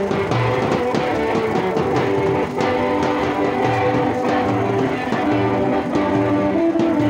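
Amplified guitar music with a bass line and a steady beat, from a walking band's electric guitars played through a portable amplifier and horn loudspeaker.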